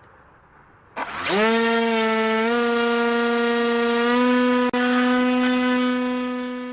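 Electric RC plane's motor and propeller spooling up about a second in with a rising whine, then running at a steady, high pitch that steps up slightly twice. The whine fades away near the end.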